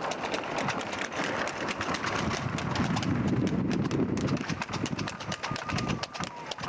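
Hooves of a horse pulling a tanga (two-wheeled horse cart) clip-clopping rapidly on a paved road at a fast trot, with a steady rushing noise under them that swells about three to four seconds in.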